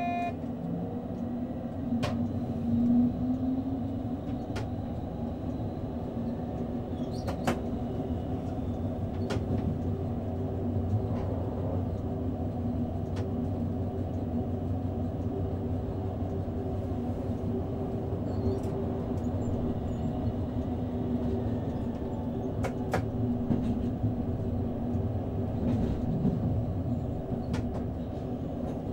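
Hamburg S-Bahn electric multiple unit running steadily along the line, heard from the driver's cab: an even rumble of wheels on rail under a steady electric hum, with a few sharp clicks scattered through.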